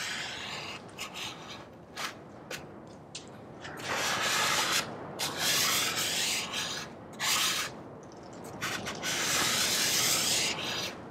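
Plastic squeegee scraping across a vinyl decal's paper-faced sheet as it is pressed onto a Jeep's hood by the dry method. It goes as a series of long strokes of a second or two, with short quick scrapes between.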